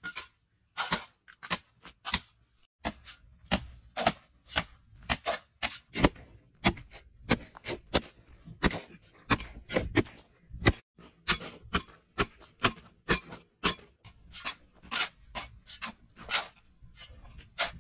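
Metal shovels repeatedly striking and scraping into dry clay soil as two people dig, with loose dirt thrown; about two uneven strokes a second.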